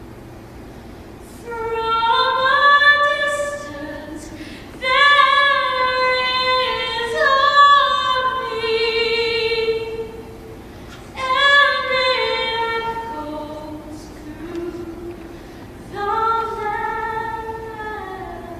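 Female soloist singing four long phrases with held, stepping notes, with a choir sustaining softer, lower notes beneath her in the pauses.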